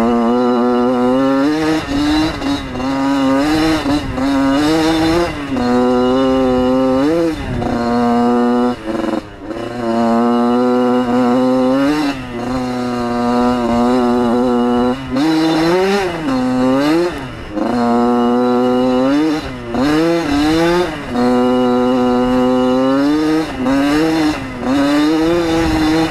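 1994 Yamaha YZ80's single-cylinder two-stroke engine running hard, heard from the rider's helmet. The pitch climbs through each gear and drops with every shift or roll-off of the throttle, over and over.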